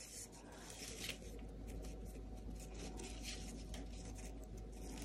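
Faint, irregular rustling and light scraping of a ribbon being handled and drawn through the fingers, over a low steady hum.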